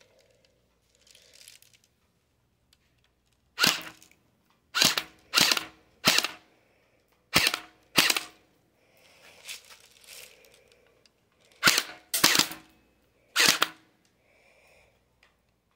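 Airsoft gun firing nine single shots in short groups of one to three, with sharp cracks a second or several apart.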